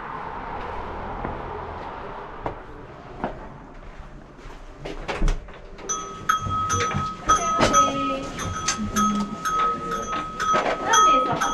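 Clicks and knocks as a wooden door is pushed open. About halfway through, a chiming tune with steady high ringing notes starts and carries on.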